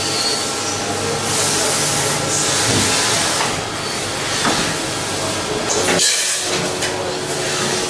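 Mazak VTC 300C CNC vertical machining center running, a steady hiss with a few faint steady tones under it and a brief dip about six seconds in.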